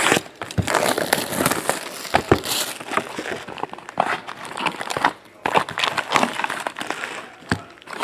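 Plastic wrapping being torn off a cardboard box of trading-card packs and crumpled, a dense crinkling crackle with sharp little snaps, along with the rustle of the cardboard lid being flipped open.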